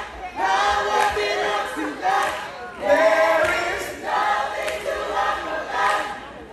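Large concert audience singing along together in short phrases, a crowd of voices in unison.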